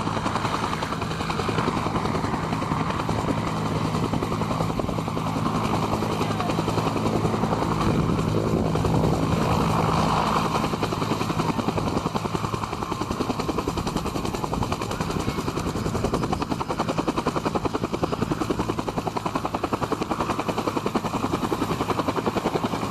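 Helicopter in flight: a steady rapid chop from the rotor over a constant engine hum, swelling a little in the middle.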